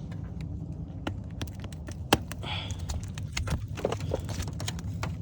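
Scattered small clicks and taps from handling Christmas light clips and bulbs at the roof edge, with one sharper click about two seconds in, over a steady low rumble.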